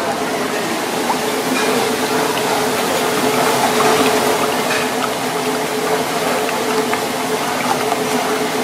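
Two raw eggs being beaten with wooden chopsticks in a ceramic bowl: a continuous wet sloshing with faint scattered ticks of the chopsticks against the bowl, over a steady kitchen hum.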